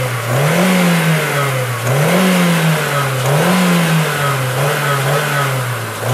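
Ford Courier's 1.6 Zetec Rocan eight-valve four-cylinder engine being revved in quick throttle blips, about four rises and falls in pitch, sounding close to normal. The engine hesitates at the start of acceleration and shows a wrong manifold pressure reading, which the mechanic suspects comes from a burnt head gasket or burnt or stuck valves.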